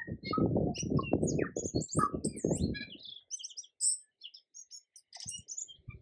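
Tui singing: a quick jumble of high chirps, twangy whistles and clicks. For about the first three seconds a dense low rattle runs under the notes; after that only scattered high notes remain.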